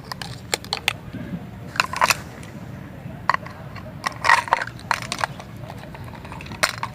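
Miniature toy cookware and utensils being handled, giving irregular small clicks and knocks, with a steady low hum underneath.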